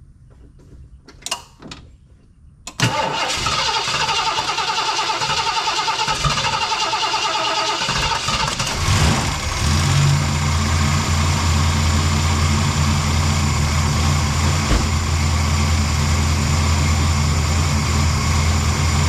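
Ford 460 big-block V8 in a 1975 Lincoln Continental being cranked by its starter after sitting for a couple of weeks, turning over for about five seconds while fuel is drawn up to the carburetor. It then catches and settles into a steady idle. A couple of light clicks come before the cranking.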